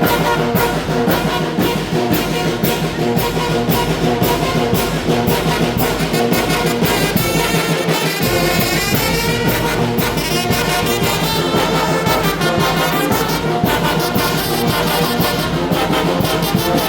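Mexican brass band playing a huapango: trumpets and trombones over a steady percussion beat.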